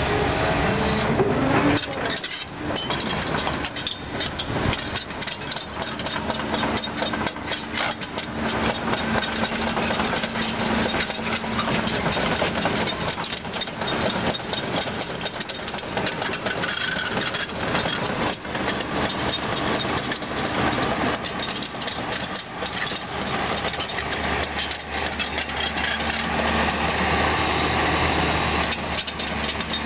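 Caterpillar 320D2 crawler excavator travelling, its diesel engine running steadily under the clanking and grinding of the steel track links over stones. The engine note rises briefly about a second in.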